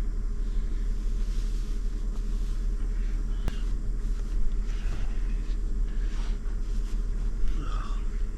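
Toyota 4Runner's engine idling steadily: a continuous low hum, left running to warm up in extreme cold.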